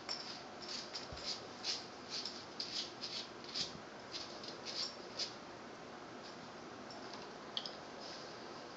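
A dog's claws clicking and scraping on a tile floor as it paws at a cockroach: a quick, irregular run of small sharp clicks for about five seconds, then a few scattered ones.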